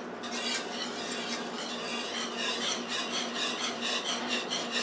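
Wire whisk scraping quickly round a metal skillet, stirring a thin milk sauce base for a cheese sauce, in rapid repeated strokes.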